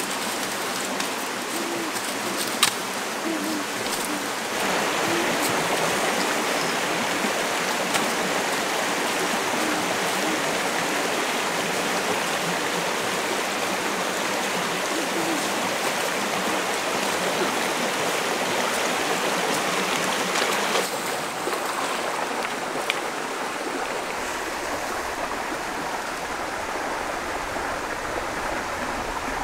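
Steady rushing of a flowing stream, with a few short sharp knocks over it.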